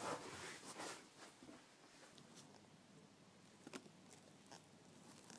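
Near silence: soft rustling for about the first second, then a few faint clicks.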